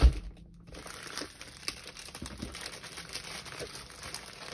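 Clear plastic bag around a rolled diamond painting canvas crinkling irregularly as hands handle it and work at opening it, after a soft thump right at the start.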